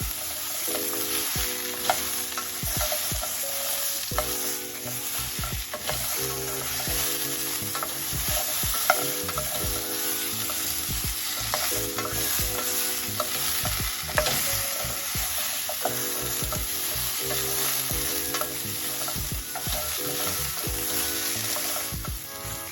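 Food frying in hot oil in a pan, a steady sizzle, while a utensil stirs it, clicking and scraping against the pan many times.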